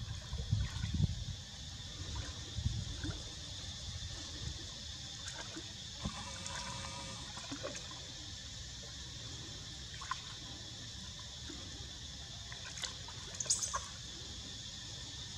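Steady high-pitched insect drone, with a low rumble and a few knocks in the first second or so, scattered faint clicks, and a short chirp near the end.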